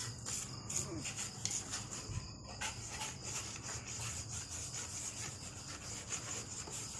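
Quick, irregular rubbing strokes on wood, like sanding by hand, during work on a guitar.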